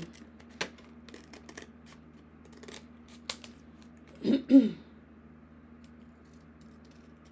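Scissors snipping through laminated card stock, a scattering of sharp snips and clicks. About four seconds in, two short, loud bursts of a person's voice stand out above the cutting.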